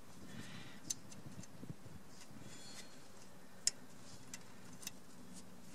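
A few light metal clicks as the parking brake lever's retaining clip is worked onto its pin by hand on a drum brake assembly, with one sharper click a little over halfway through.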